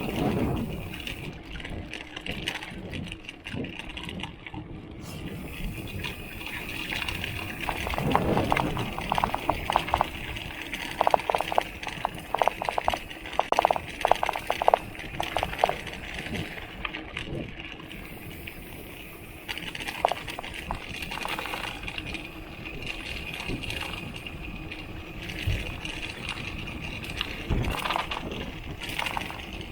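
Water bottle rattling in the bottle cage of a mountain bike ridden over rough ground, in quick bursts of clatter, busiest from about 8 to 16 seconds in, over steady tyre and trail noise.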